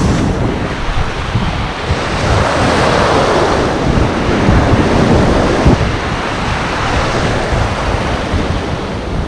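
Shallow sea surf breaking and washing, with wind rumbling on the microphone. The wash of one wave swells about two seconds in and eases off after about five seconds.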